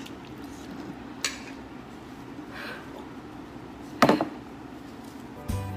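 A utensil clicking against a noodle bowl now and then, with a louder sharp knock about four seconds in. Guitar music starts just before the end.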